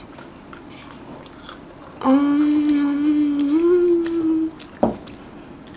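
A person humming one long "mmm" note starting about two seconds in, held for about two and a half seconds, its pitch stepping up slightly near the end; a short click follows.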